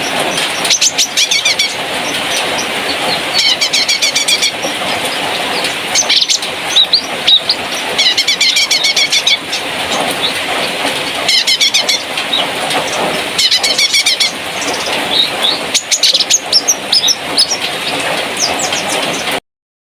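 A cucak kinoi songbird singing: short, rapid chattering phrases repeated every second or two, over a steady background hiss. The sound cuts off abruptly near the end.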